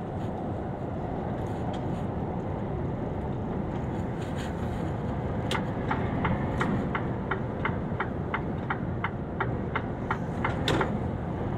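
Steady engine and road noise inside the cab of a Mercedes-Benz Actros lorry on the move. Starting about halfway through, a turn-signal indicator ticks about three times a second for some five seconds, as the lorry signals a lane change.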